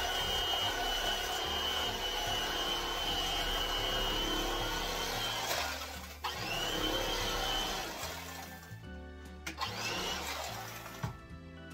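Electric carving knife running as it slices through a beef roast: a steady high motor whine for about five seconds, then it stops and starts again for two shorter runs. Light background music comes in near the end.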